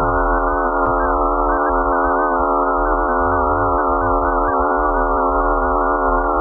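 Electronic emergency-alert attention tone: a loud, steady chord of many sine-like tones held without a break, over a low rumble.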